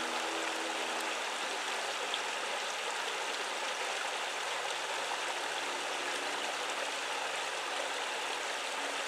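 Shallow creek running over flat rock ledges and small cascades: a steady rush of flowing water.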